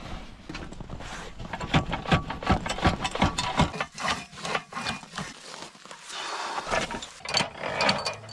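Charcoal and ash being scraped and knocked out of a forge: a quick run of clattering knocks and scrapes, then a stretch of gritty scraping with a few more knocks near the end.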